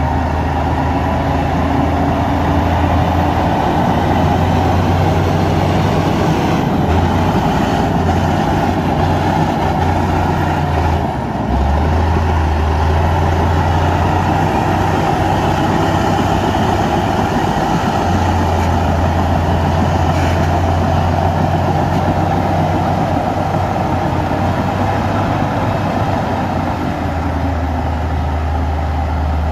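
Heavy diesel earthmoving machinery running steadily under load, a low engine drone with dense mechanical noise over it, dipping briefly about eleven seconds in.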